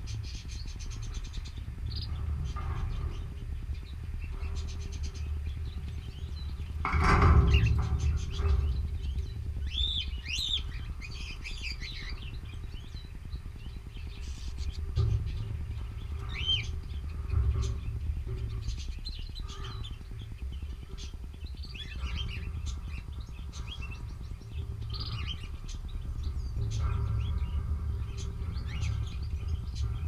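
Canaries chirping and calling in short scattered notes over a steady low rumble, with one louder rush of noise about seven seconds in.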